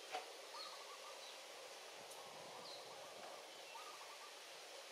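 Faint forest ambience: a steady hiss with a few short, wavering calls, and one sharp click just after the start.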